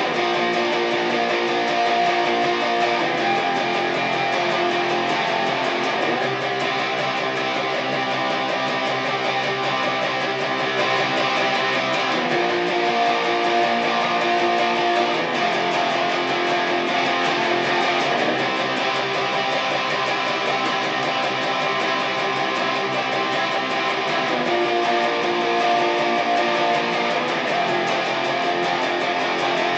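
Guitar-led music: strummed chords held and changing about every three seconds, at a steady level.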